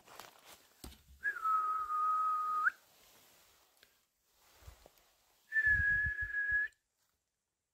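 A person whistling two long held notes. The first slides down slightly at its start and then holds steady. The second, a little higher, holds steady for about a second.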